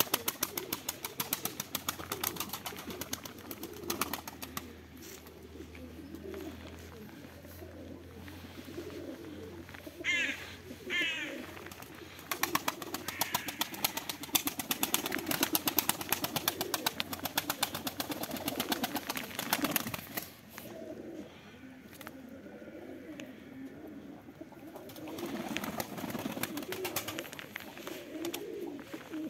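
A flock of domestic pigeons cooing, with wing flapping and many quick sharp ticks throughout. A short chirping call sounds about ten seconds in.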